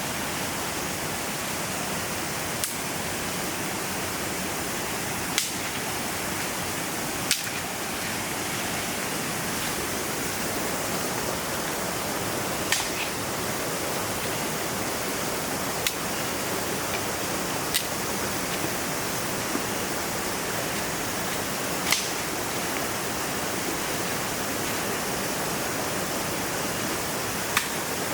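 Steady rushing of a forest river, with sharp single clicks every few seconds.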